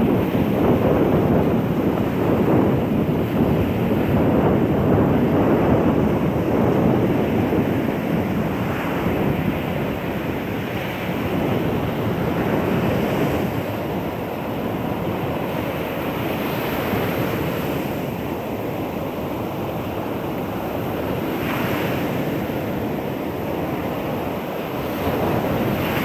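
Rough sea surf: waves breaking close to the shore and foam washing up the sand in a continuous wash. It is loudest in the first few seconds, with fresh breakers swelling up now and then.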